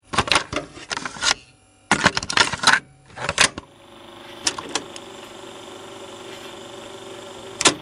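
Rapid sharp mechanical clicks in three quick bursts over the first three and a half seconds, then a low steady hum with a few faint ticks and one sharp click near the end.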